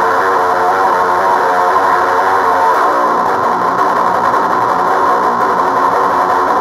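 Electric guitar played through an HM-2 style Swedish Chainsaw distortion pedal stacked with a JHS Bonsai Tube Screamer-type overdrive, both engaged, giving a heavily distorted tone. The chords are held and sustained, loud and unbroken.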